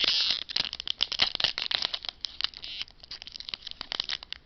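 Trading cards and a foil card-pack wrapper being handled, crinkling and clicking. The rustle is densest at the start and again from about one to three seconds in, then thins out to scattered clicks.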